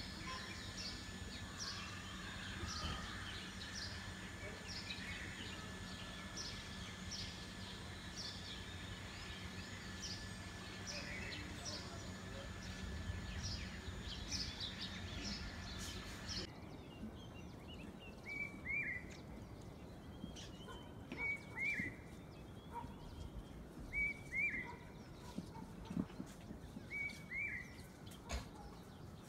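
Faint outdoor birdsong. At first, small birds chirp rapidly and high-pitched, about two chirps a second, over a faint steady hum. After a sudden change just past halfway, one bird repeats a short falling call about every three seconds against a quieter background.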